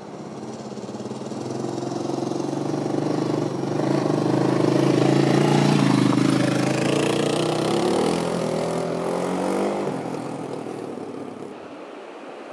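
Single-cylinder enduro motorcycle riding past. Its engine grows louder as it approaches and is loudest about five to six seconds in, then drops in pitch and fades away.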